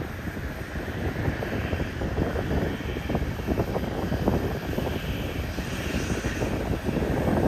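Aircraft engine noise: a steady, rough rumble with no clear tone.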